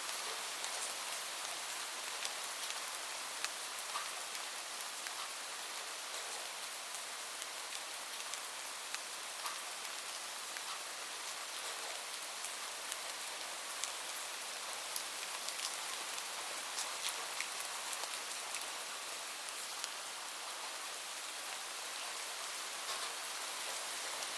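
Steady rain: an even hiss with many scattered sharp ticks of individual drops striking a surface.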